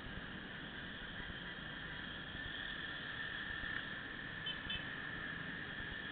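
Muffled road and traffic noise from a motorcycle riding in city traffic, picked up by a small camera microphone: a steady hiss with a faint high hum. Two short high beeps come close together about four and a half seconds in.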